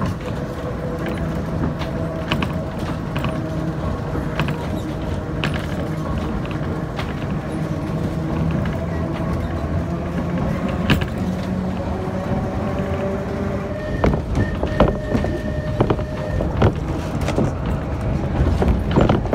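Vintage Manx Electric Railway tram running on its track, heard from on board: a steady rumble under a faint motor whine that slowly shifts in pitch, with wheel clicks over rail joints. About three-quarters of the way through the knocks come thicker and louder, and a high tone is held for about two seconds.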